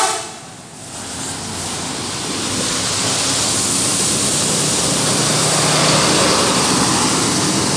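A large bus passing close by: its engine and tyre noise swells over the first few seconds, then holds as a loud, steady rush with a faint low engine hum.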